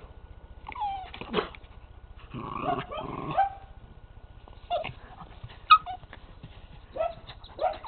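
Puppies at play: short high yips that drop in pitch, with a rough growl about two to three seconds in and one sharper, louder yelp a little past the middle.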